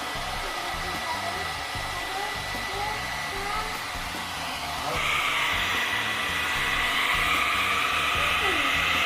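Hand-held hair dryer blowing steadily. About five seconds in it gets louder and its whine brightens.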